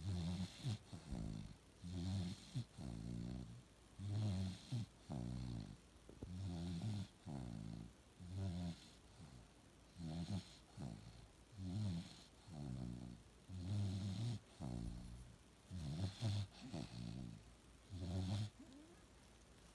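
Bulldog snoring in a steady rhythm, about one snore a second, stopping about a second before the end.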